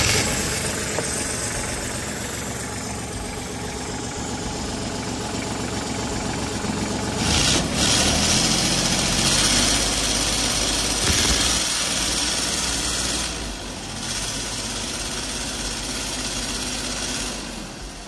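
Branson tractor's diesel engine running with the plug pulled from its exhaust manifold, exhaust blowing straight out of the open port to get round a clogged DPF filter. The sound grows louder for a few seconds about midway, then settles and eases off near the end.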